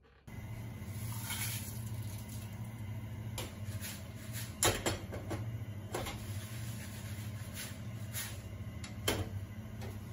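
Whole dried red chillies being dry-toasted in a wok over a gas burner: a steady low hum under scattered light rattles and clacks as the pan is moved, the sharpest clack a little before halfway and another near the end.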